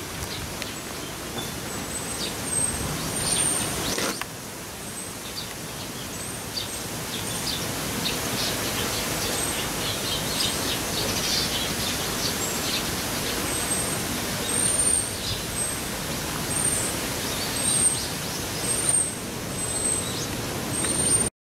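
Small birds chirping: many short, very high-pitched chirps, busier in the second half, over a steady background hiss.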